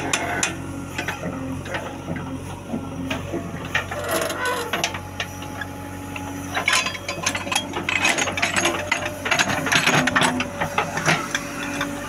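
JCB backhoe loader's diesel engine running as the machine drives, with a busy metallic clatter and rattling that gets denser and louder in the second half.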